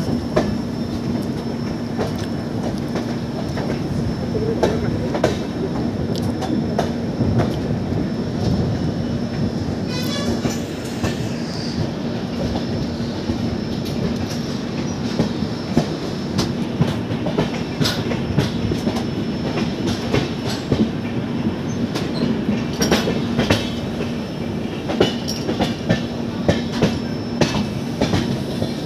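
Passenger train rolling out of the station: steady running noise over a steady hum, with the wheels clacking over rail joints and points, more often near the end.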